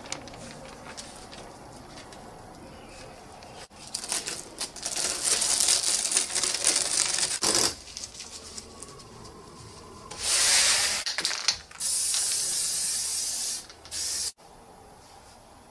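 Aerosol spray-paint can spraying through a stencil in several hissing bursts of a second or more each, the first one sputtery and uneven, the later ones smoother.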